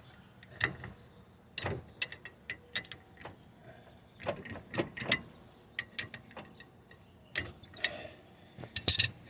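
Irregular metallic clicks, clinks and knocks of hand tools and wheel hardware while a car wheel is being fitted, with a few louder knocks near the end.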